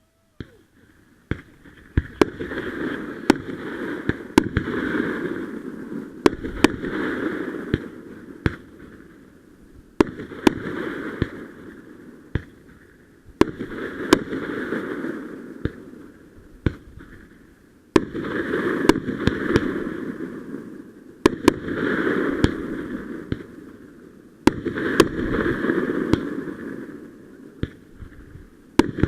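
Consumer fireworks going off: sharp bangs and pops many times over, with stretches of rushing, crackling noise a couple of seconds long recurring every few seconds in between.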